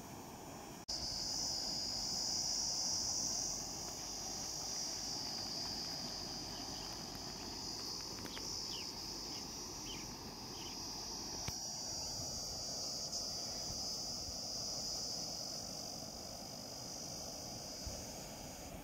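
A steady, high-pitched insect drone that starts abruptly about a second in and stops abruptly near the end, over the low rush of water pouring from a concrete canal outlet.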